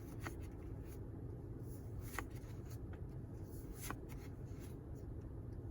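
Pokémon trading cards being slid and flicked through by hand, giving a few soft, sharp card snaps over a low steady background hum.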